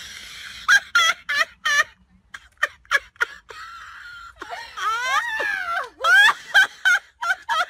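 A woman's high-pitched shrieking laughter in quick short bursts, with a long wavering wail in the middle, as someone lies sprawled in a manure heap after a fall.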